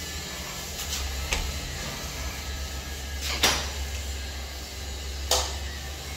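Three short, sharp knocks over a steady low hum, the loudest about halfway through.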